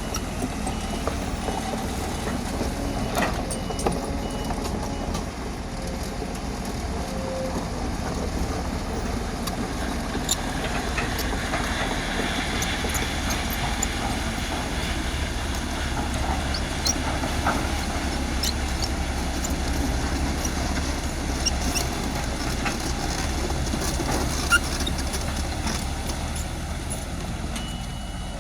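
Crawler bulldozer working as it spreads aggregate base course: the diesel engine runs steadily under load, with scattered metallic clanks. A reversing beeper sounds for the first few seconds.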